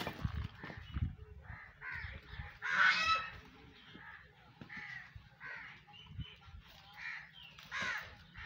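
Repeated short, harsh animal calls, several every second or two, the loudest about three seconds in and another just before the end, with a few low thuds underneath.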